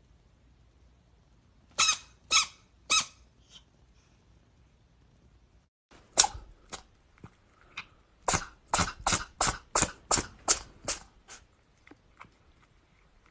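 A small pet sneezing: three short, high sneezes in quick succession. After a break, a fast run of about a dozen sneezes follows, roughly two a second, trailing off near the end.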